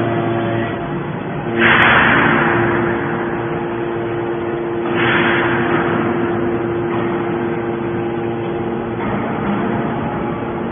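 Hydraulic scrap metal baler running: a steady pump hum, with two loud hissing surges about a second and a half and five seconds in that fade away over a second or so.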